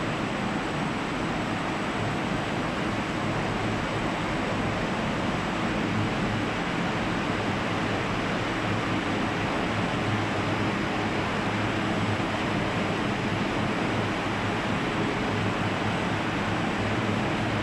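Steady rushing air noise from a running paint drying oven for screen-printed glass, its blowers and conveyor running, with a faint high-pitched whine over it.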